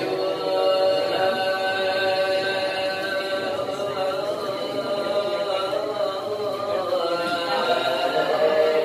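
Voices chanting a selawat dulang verse (Minangkabau Islamic sung poetry) in long, drawn-out held notes that bend slowly in pitch.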